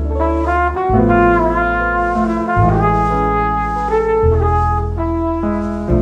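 Instrumental background music: a melody of held notes that change about every half second to second, over sustained bass notes.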